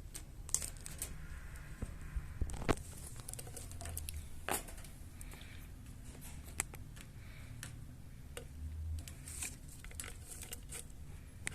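Scattered light clicks and taps with some rustling, over a steady low hum.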